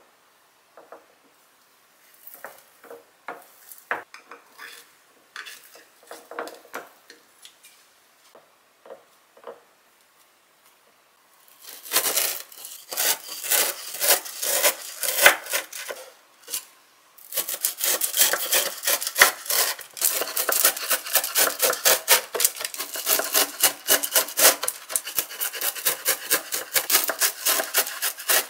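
Kitchen knife cutting through a slab of hardened oranda (syrup-bound puffed-grain candy) topped with dried gamtae seaweed: a dense run of crisp crunching and crackling that starts about twelve seconds in, with a brief pause in the middle. Before that there are only sparse light rustles and taps.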